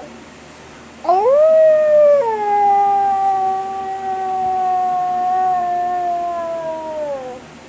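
A person imitating an animal howl with their voice: one long howl that starts about a second in, rises quickly, then drops to a long held note that falls away near the end.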